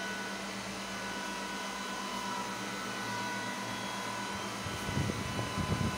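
Cooling fans of an open-frame GPU mining rig whirring steadily, with a few faint steady tones in the whir and a few low thumps near the end.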